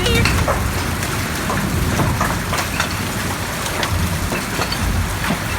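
Large hailstones pelting down in a heavy storm: a steady, dense clatter of many sharp, irregular impacts, so loud.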